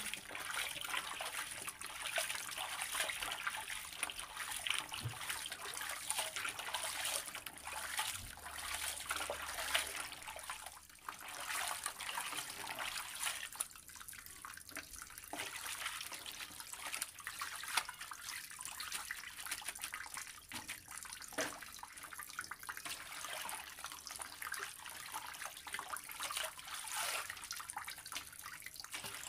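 Water sloshing and splashing in a basin as gloved hands rub and swish thin raw potato slices to wash them, in an irregular, fluctuating splashing.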